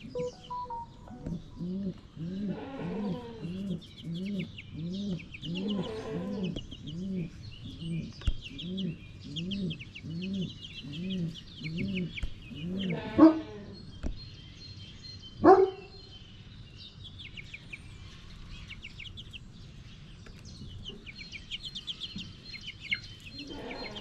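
Chickens clucking: a steady run of low, evenly spaced calls, about two a second, through the first half, then two louder single squawks close together. Small birds chirp faintly and high in the background throughout.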